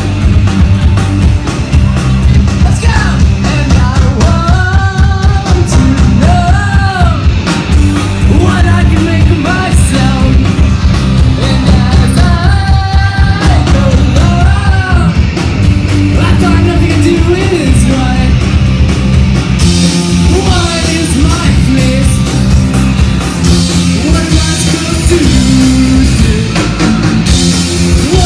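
A live rock band playing loud: two electric guitars, electric bass and drum kit, with a lead vocalist singing over them from about three seconds in.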